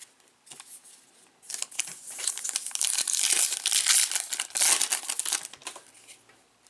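Foil wrapper of a Panini Prizm basketball card pack crinkling and tearing as it is ripped open by hand. A few light clicks come first; the rustling builds about a second and a half in and dies away near the end.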